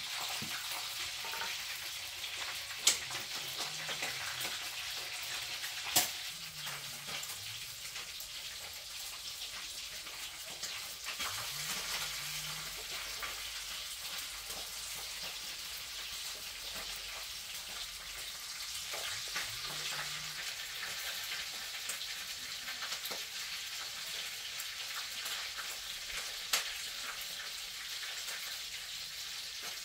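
Food sizzling in a wok over a wood fire: a steady hiss, with light scraping and a few sharp clicks.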